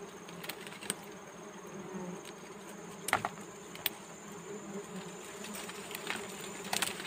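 A swarm of dwarf honey bees buzzing steadily around their disturbed comb. A few short sharp clicks come through, the loudest about three seconds in.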